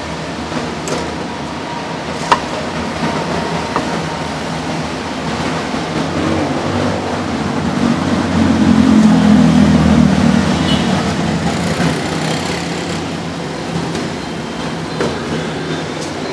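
Low, steady rumble of street traffic that swells for about three seconds midway, as a vehicle passes. A few sharp chops of a cleaver on a wooden chopping board sound in the first few seconds.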